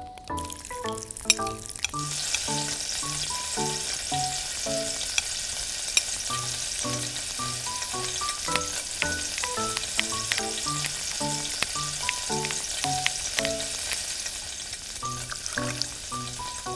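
Food frying in hot oil in a miniature pan: a steady sizzle with scattered crackles and pops. It starts about two seconds in and fades near the end, over light background music.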